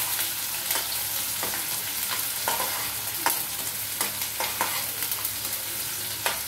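Chopped onions frying in hot oil in a kadhai, sizzling steadily, while a metal spoon stirs them and now and then clicks and scrapes against the pan. The onions are being lightly browned.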